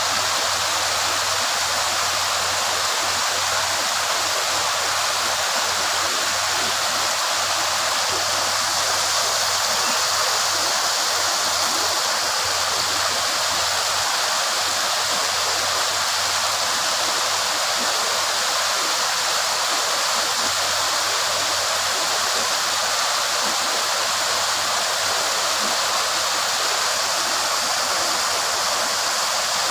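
Shallow rocky river rushing steadily over and around stones.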